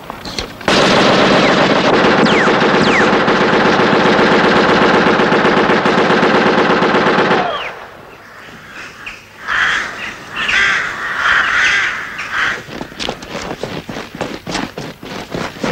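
A machine gun firing one long unbroken burst of about seven seconds, which stops abruptly. Afterwards come chirping bird calls, then scattered sharp cracks.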